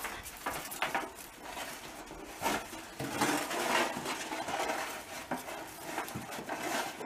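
A hand rummaging through dry leaves, grass stems and twigs in a stainless steel sink: rustling, with light scrapes and taps on the metal.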